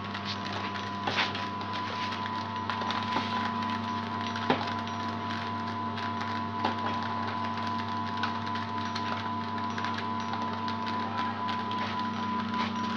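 Small kaju biscuit-making machine running: a steady motor hum and whine from its conveyor drive, with scattered light clicks and knocks, the sharpest about four and a half seconds in.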